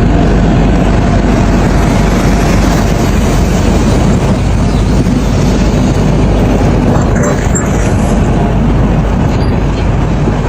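Excavator's diesel engine running steadily, a constant low hum under loud mechanical noise.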